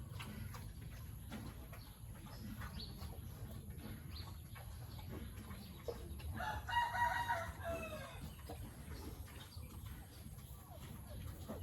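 A rooster crowing once, about six seconds in: one call of about two seconds that falls in pitch at the end.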